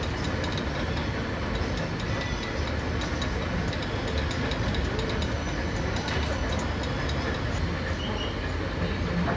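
Machinery running steadily with a low rumble, with scattered light metallic clicks and ticks throughout.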